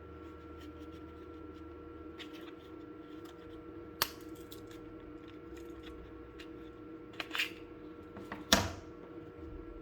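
Scattered clicks and knocks from handling a folding knife and its packaging, over a steady hum. There is a sharp click about four seconds in, a few light clicks later, and the loudest knock near the end.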